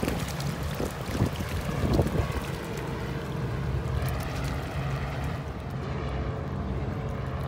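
Strong wind buffeting the microphone with a low rumble, heaviest in the first two seconds, over shallow surf washing up on a sandy beach.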